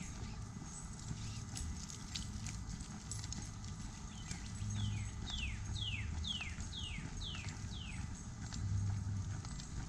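Footsteps walking on a paved park road. In the middle stretch a bird sings a quick run of about seven downslurred whistles, each falling in pitch.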